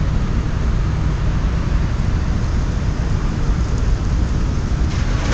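Maid of the Mist tour boat under way: a steady low rumble with an even rushing hiss of wind and water.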